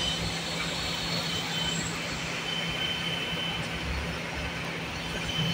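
Steady mechanical hum: a constant low drone with a faint high whine above it, unchanging throughout.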